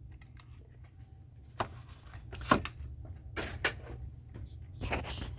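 Handling of carded die-cast toy cars: a few irregular sharp clicks and taps of plastic blister packs and card, the loudest about halfway through, over a faint steady low hum.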